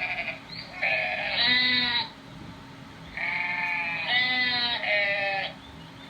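Sheep bleating repeatedly: a run of bleats about a second in, then a longer run of three calls from about three seconds in.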